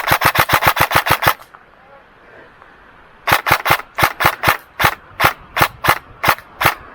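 Airsoft electric rifle firing. A full-auto burst of about ten shots a second stops just over a second in, and after a pause it fires single shots about three a second.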